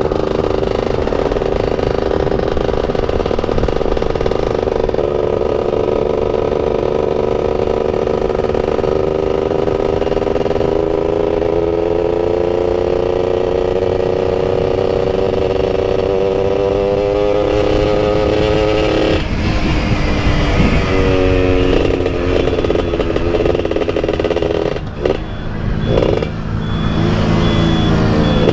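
Motorcycle engine running under load while riding. Its pitch climbs slowly and steadily, drops sharply about two-thirds of the way through, as at a gear change or throttle-off, then climbs again and changes once more near the end, with wind rush underneath.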